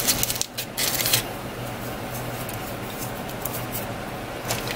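A few light clicks and scrapes of a spatula working in the stainless steel liner of an Instant Pot full of beans and water in the first second or so, then only a low steady hum.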